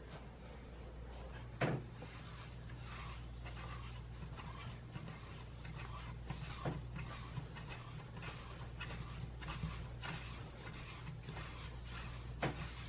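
Hands rounding a ball of yomogi bread dough on a floured wooden board: soft rubbing and patting of dough against the wood, with a few sharper knocks, the loudest about two seconds in, over a steady low hum.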